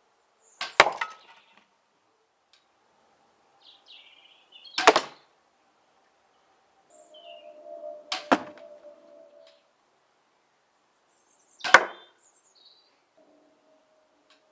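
Four sharp cracks, spaced about three to four seconds apart: a crossbow being shot and its bolts striking the targets.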